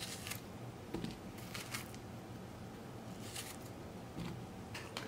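Small knife hulling and cutting fresh strawberries and the pieces being set on a plate: a few soft, irregular cutting and handling sounds.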